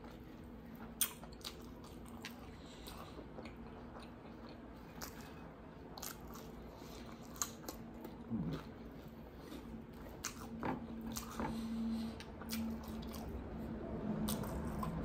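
Close-up chewing and biting on sesame chicken wings, with scattered small wet clicks and crunches of mouth and food.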